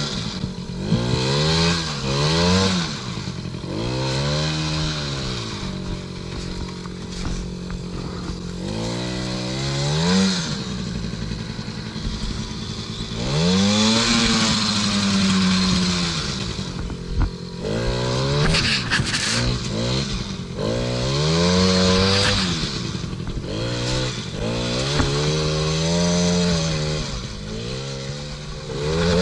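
Small 50cc two-stroke engine of a kids' ATV (a Chinese Suzuki Noppeli clone) revving up and easing off again and again as it is ridden, with a few seconds of steady running in between. A brief clatter comes about two-thirds of the way through.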